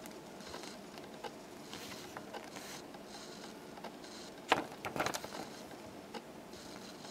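Folded paper pamphlet being handled and turned, with soft rustling swishes and a short burst of sharper crackling about four and a half seconds in.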